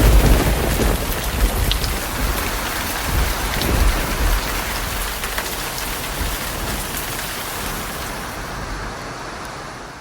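Heavy rain pouring down in a steady hiss, with low rumbles of thunder at the start and again about three to four seconds in. The sound fades out near the end.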